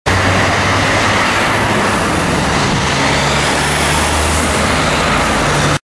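Steady road traffic noise with a low engine hum underneath, cutting off abruptly near the end.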